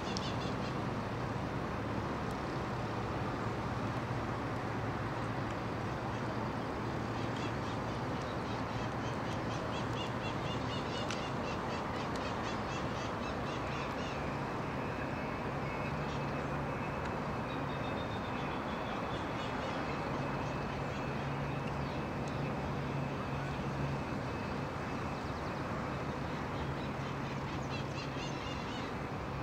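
Outdoor ambience of steady background noise with a low hum, with birds calling now and then, most around the middle and again near the end.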